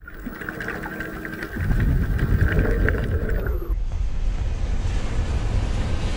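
Sound effects for an animated logo intro. A steady high tone with faint ticking gives way, about a second and a half in, to a deep rushing whoosh that swells and continues as an even rushing noise after the high tone stops.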